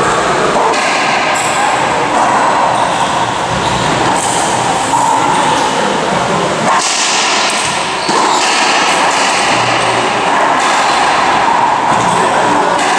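Racquetball play: the ball struck by racquets and smacking off the court walls and floor, echoing in the enclosed court, over a steady loud background din.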